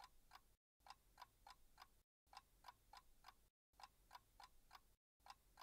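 Faint clock ticking, about three to four ticks a second, in short runs broken by brief dead silences roughly every second and a half.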